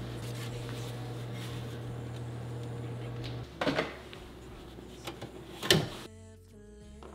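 Microwave oven running with a steady hum that cuts off about three and a half seconds in. Then two knocks as glass baking dishes are turned out and set down on a metal mesh tray, the second one louder. Soft music comes in near the end.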